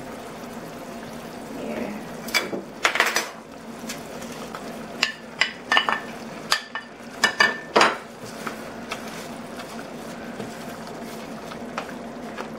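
A cooking utensil clinking and scraping against a frying pan as sliced onion and lemon are stirred into the simmering pork chops, with a run of sharp clinks between about two and eight seconds in.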